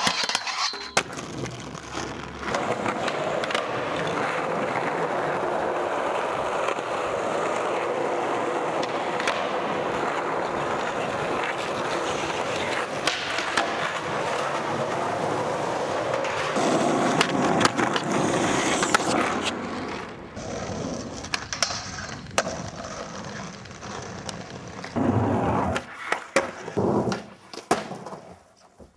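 Skateboard wheels rolling and metal trucks grinding along a rail and a concrete ledge, a long steady scraping rumble. Near the end come several sharp pops and landing slaps of the board.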